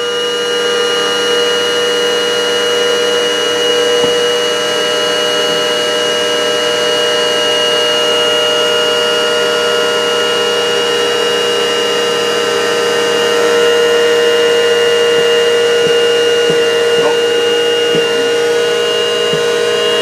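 Shark handheld vacuum cleaner running inside a switched-on microwave oven: a steady, high-pitched motor whine over the oven's hum.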